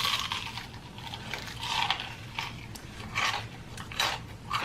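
Close-up chewing and crunching of crispy fried chicken, several irregular crunches.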